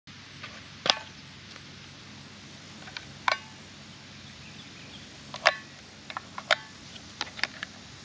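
Sharp clicks and snaps as hands work the plastic control housing of a Vanquish 540 metal detector. Four louder clicks come a second or two apart, then a quicker run of lighter clicks near the end, over faint steady background hiss.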